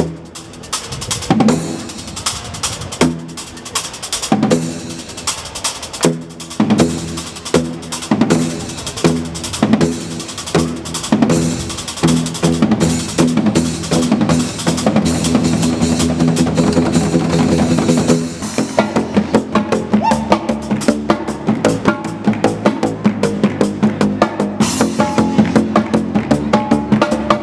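Live percussion music: pitched drum strokes that gather into a rhythm, then about two-thirds of the way through switch to a fast, even pulse over a held low note.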